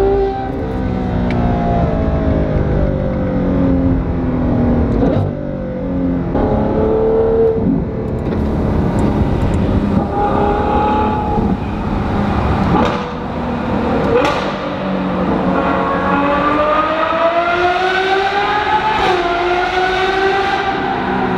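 Ferrari 812 Superfast's straight-piped 6.5-litre V12 heard from inside the cabin, revving up and down through the gears. Its pitch drops and climbs repeatedly, with sharp cracks at several shifts and a long climb in pitch in the last few seconds, broken once by an upshift.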